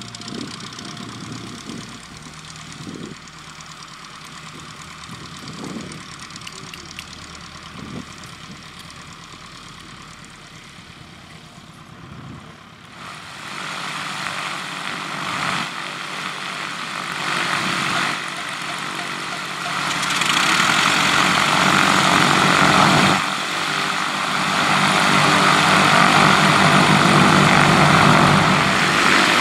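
Propeller-driven piston engines of light aircraft taxiing, running steadily, louder from about halfway through and loudest near the end as a twin-engine light aircraft runs close by.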